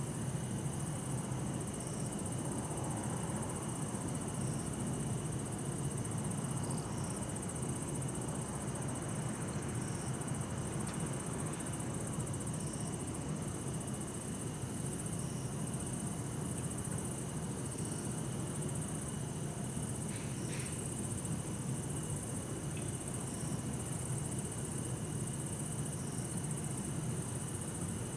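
Night insects calling steadily, among them bell crickets, with short repeated calls about every two seconds over a constant high-pitched trilling. Underneath runs a low, even hum of distant city traffic.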